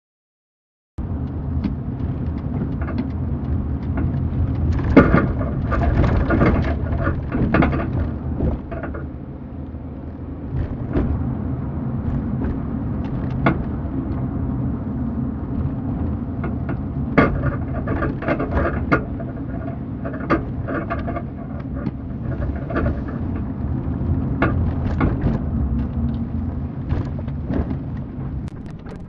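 Ford Taurus driving, heard from inside the cabin at the back seat: steady road and engine rumble with repeated sharp clunks at irregular intervals, the clunking the owner hears when turning left and suspects comes from a strut.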